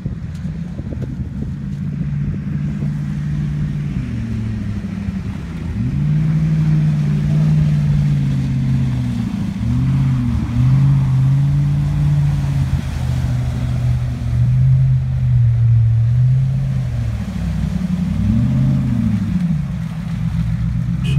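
Land Rover Discovery engine revving as the 4x4 drives through shallow lake water, its pitch rising and falling several times with throttle and gear changes.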